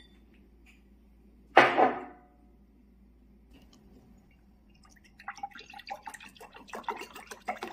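A single sharp sound about two seconds in, then from about five seconds in a drink being poured from a carton into a ceramic cup, splashing irregularly.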